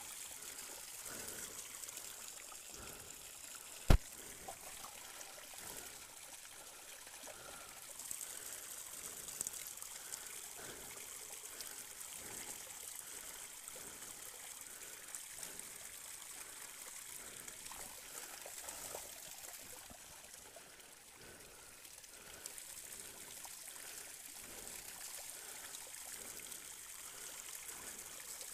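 Water running steadily from a roadside spout, a continuous trickle and splash, with one sharp knock about four seconds in.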